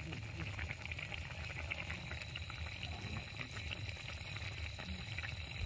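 Shrimp curry boiling in an iron kadai: a steady bubbling with many small pops.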